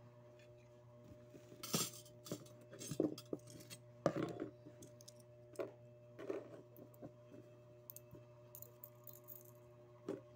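Small metal pieces, a security guard badge and its collar pins, clicking and clinking as they are handled and taken apart on a cloth: a scattering of short light knocks, loudest about four seconds in, over a faint steady hum.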